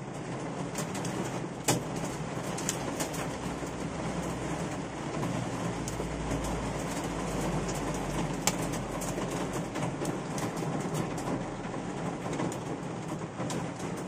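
Hail and heavy rain drumming on a car, heard from inside the cabin: a steady rush of rain with frequent sharp ticks of hailstones striking the roof and windshield.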